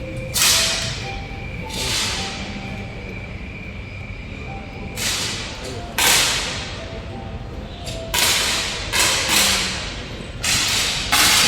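10 m air rifles being fired on a shooting range. There are about nine sharp pops at uneven intervals from several lanes, some a second or more apart and some coming in quick pairs less than half a second apart. Each pop has a brief ringing tail.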